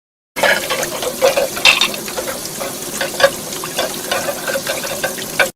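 Dishes being washed in a sink: splashing water with repeated clinks of crockery knocking together. It starts abruptly and cuts off suddenly.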